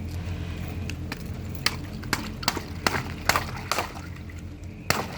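Water running steadily into a squishy bear toy as it fills and swells, with a string of about eight sharp clicks and taps in the second half.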